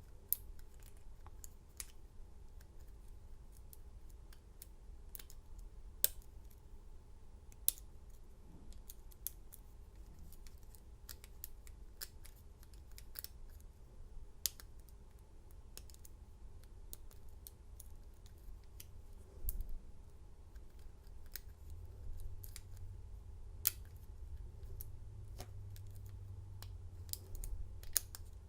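Lock pick and tension wrench working the pin stack of a Master Lock U bike lock during single-pin picking: faint, irregular metallic clicks and scrapes, with a few sharper clicks.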